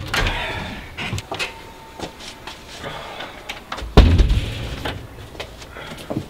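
Wooden front door: a few sharp clicks of the latch and handle, then the door shut with one loud thud about four seconds in.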